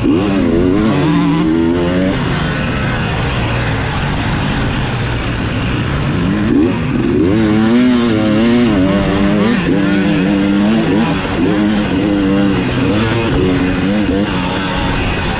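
Dirt bike engine revving hard while ridden, heard up close from the bike itself. Its pitch climbs and drops over and over as the throttle is worked, with a haze of wind and track noise beneath.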